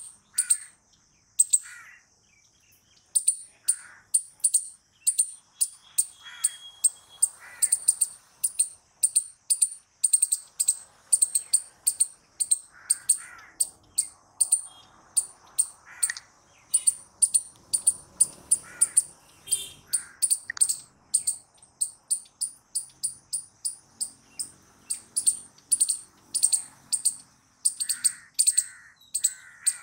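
Palm squirrel giving its chirping alarm call: a long series of sharp, high, bird-like chirps, about two to three a second with short pauses. Fainter, lower bird calls come through now and then.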